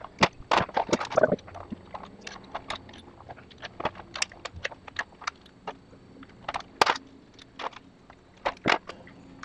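Steel parts of a machine skate clicking and clinking as they are handled and fitted together on a steel workbench: a string of sharp, irregular metal clicks and taps.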